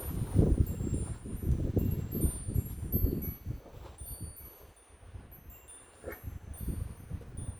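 Wind chimes tinkling with scattered high ringing notes, over gusts of wind buffeting the microphone that ease off about halfway through.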